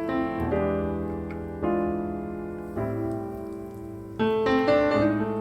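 Background piano music: slow, sustained chords, a new one struck every second or so.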